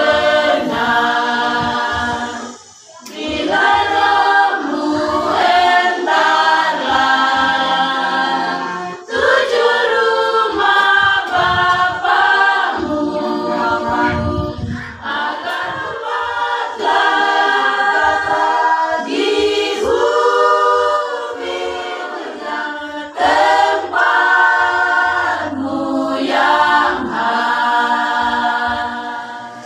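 Women's choir singing together a cappella, with brief pauses between phrases.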